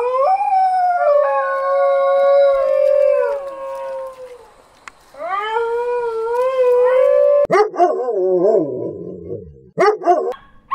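Dingoes howling: long howls that rise and then hold, with two voices overlapping at first and a second howl a few seconds later. Near the end come fast, wavering yelps.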